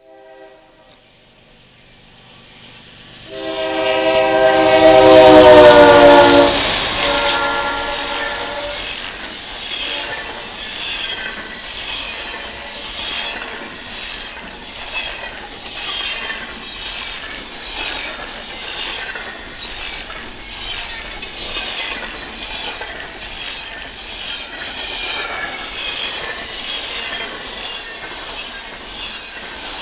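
Freight locomotive air horn sounding a loud multi-note chord about three seconds in, its pitch dropping as the locomotive passes. Then the freight cars roll by with a steady rumble and rhythmic wheel clicks over the rail joints, about one a second.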